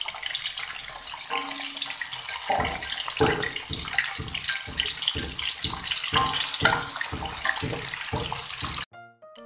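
Shallots, garlic and kencur frying in hot oil in a wok, a steady loud sizzle. From about two and a half seconds in there is a run of regular low knocks, about two or three a second. The sizzle cuts off suddenly near the end, and piano music takes over.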